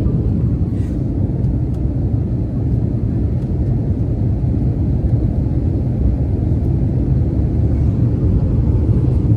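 Steady low rumble of an Airbus A320-family jet airliner heard from inside the cabin, its engines under takeoff power.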